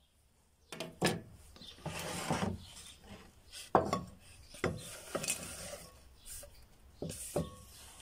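A wooden cutting board and a glass bowl being handled, with several knocks, the sharpest about four seconds in, and stretches of rubbing and scraping. Near the end, sliced onions are scraped off the board into the bowl.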